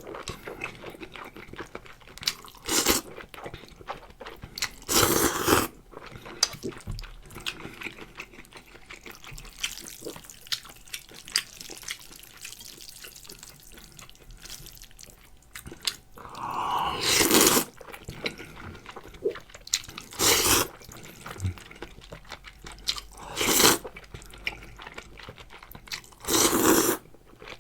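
A person eating prawns and spicy fire noodles close to the microphone: steady wet chewing, broken about six times by short, loud bites or slurps.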